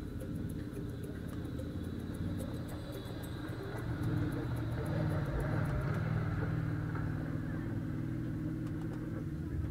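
Off-road side-by-side engine idling steadily, getting a little louder about halfway through.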